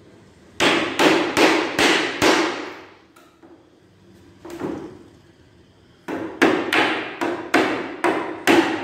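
Hammer nailing wooden slats: a quick run of about five blows, a single blow in the middle, then another quick run of seven or eight blows near the end.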